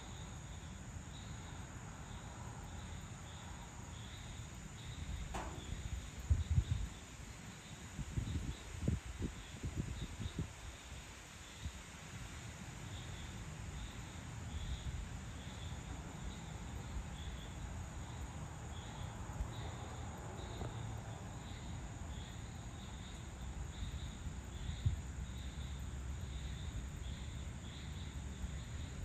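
Crickets chirping in a steady, even run of high, short pulses. Low rumbling breaks in for a few seconds about six seconds in and is the loudest thing heard.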